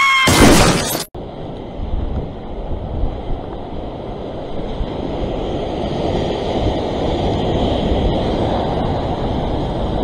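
Sea surf washing over coastal rocks, with wind on the microphone: a steady rushing that swells slightly in the second half. About a second in, a brief voice-like tone and a loud burst of noise cut off abruptly.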